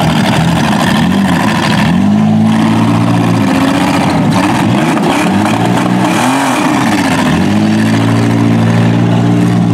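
Demolition-derby minivan engines revving hard, rising and falling in pitch again and again, with stretches held flat out for a second or two, as the vans push against each other in the mud.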